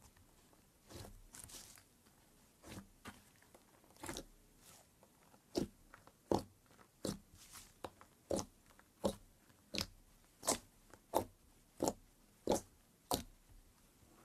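Fingers pressing into and pulling out of a glossy slime, each press giving a short sharp wet pop. The pops are scattered at first, then come in a steady rhythm, about one every 0.7 s, through the second half.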